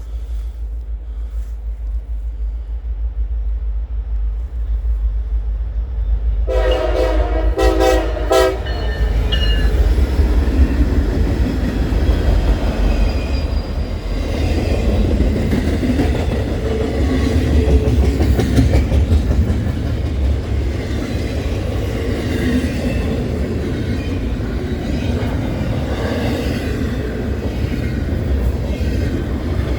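Norfolk Southern freight train led by an SD70ACe locomotive: the diesel locomotives' rumble builds, then comes a quick series of air-horn blasts about six seconds in, one longer and two short. After that the locomotives and freight cars roll past with wheel clatter.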